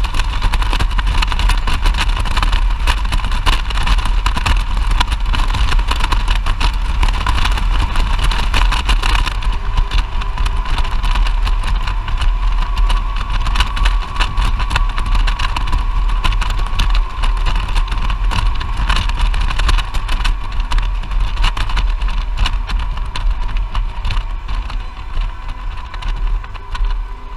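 Motorcycle on the move, heard from a helmet-mounted camera: a steady rush of wind and road noise over a low engine rumble, with a faint steady whine. It gets quieter over the last few seconds.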